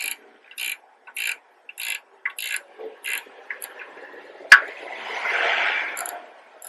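A ratchet spanner clicks in short, evenly spaced bursts, about one back-swing every 0.6 seconds, as it undoes the 13 mm nut holding a rear brake caliper carrier. The clicking stops about three and a half seconds in. About a second later comes a single loud, sharp click, followed by a brief swell of rushing noise.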